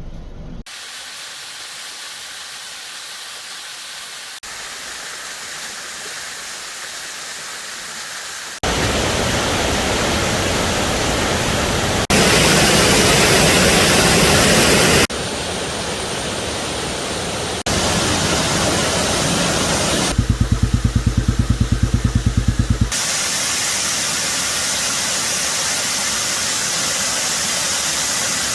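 Rushing water of waterfalls, a steady roar and hiss that changes abruptly in loudness and tone every few seconds as one waterfall gives way to the next. Past the middle, a stretch of about three seconds carries a deep rumble that pulses fast and evenly.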